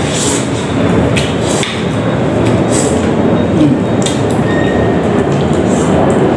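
Close-up eating sounds: instant noodles slurped and chewed, with a fork and spoon scraping and clinking against a metal wok several times, over a steady low rumble.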